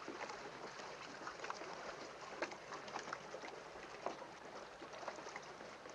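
Faint water lapping around a small boat, with a scatter of small splashes and knocks.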